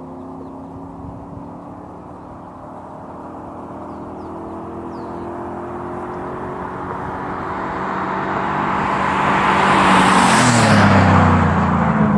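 Chevrolet Silverado 1500 pickup with a 4.8-litre V8 approaching at a steady high speed and passing close by. The exhaust note and tyre noise grow louder for about ten seconds, then the engine's pitch drops as the truck goes past near the end.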